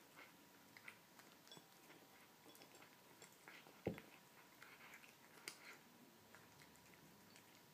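Cat chewing dry kibble mixed with wet canned food: faint, quick, irregular crunching clicks, with one low thump about four seconds in.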